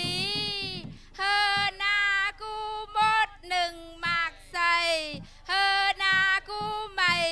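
A woman's high voice singing a traditional Thai (Tai) chant, in short held phrases whose pitch slides down at their ends, with brief pauses between them.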